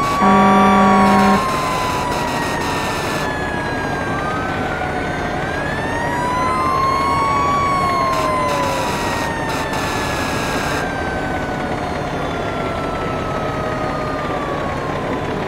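Fire engine sirens wailing, at least two at once, their rising and falling tones crossing each other. A loud, steady air-horn blast sounds for about a second near the start.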